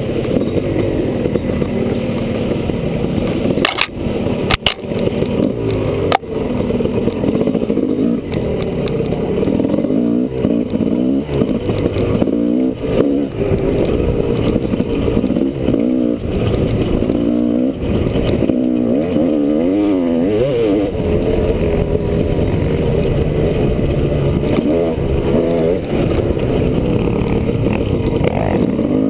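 Honda CR250R's single-cylinder two-stroke engine revving up and down continuously as the dirt bike is ridden along a trail, its pitch rising and falling with the throttle and gear changes. A few sharp knocks sound around four to six seconds in.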